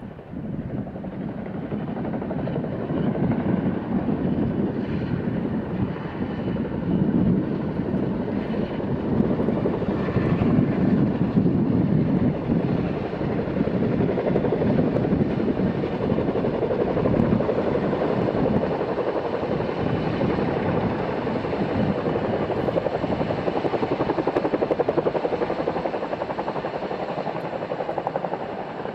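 CH-47 Chinook tandem-rotor helicopter in low flight and hover, its two rotors beating with a rapid, steady chop. The noise swells over the first few seconds, then holds loud and even.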